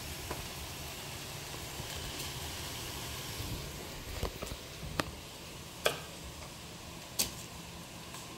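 Steady low kitchen background hiss, with four light, sharp clicks or taps scattered through the second half.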